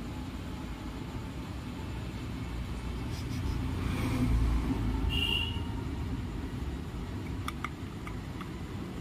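A low rumble swells and fades over a few seconds, loudest about four to five seconds in, over a steady low background hum. A few faint clicks come near the end.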